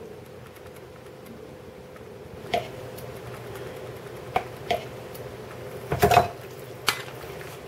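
A metal spoon clinking against a ceramic mixing bowl and a mayonnaise jar while mayonnaise is scooped into a vegetable mixture: about five short sharp clinks, the loudest a quick cluster about six seconds in. A faint steady hum runs underneath.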